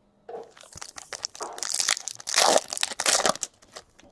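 Foil wrapper of a trading-card pack crinkling and crumpling in the hands, in a run of scratchy bursts for about three seconds.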